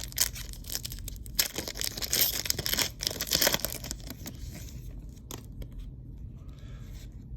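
Foil wrapper of a Panini Haunted Hoops trading-card pack being torn open and crinkled, loudest in the first few seconds, then dropping to a quieter rustle of wrapper and cards being handled.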